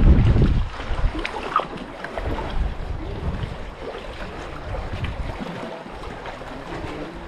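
Wind buffeting the microphone in irregular low gusts, heaviest in the first second, over a steady wash of water.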